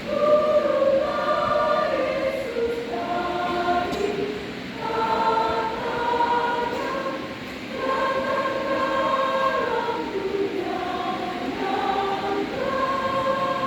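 Church choir singing in several parts, held notes in phrases with short breaks between them.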